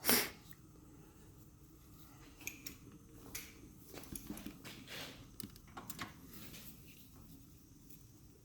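A sharp click at the start, then scattered faint clicks and taps as a drain plug and socket are fumbled into a tight, awkward spot to thread the plug back in.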